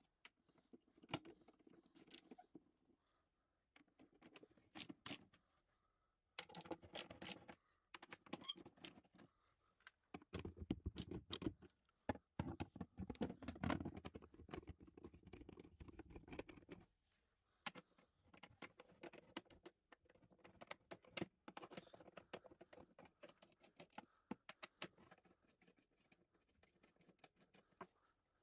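Faint handling noises from working on a scooter's plastic body panels: scattered clicks, taps and scrapes with rustling, busiest from about a quarter to just past halfway through, where a low rumble joins them.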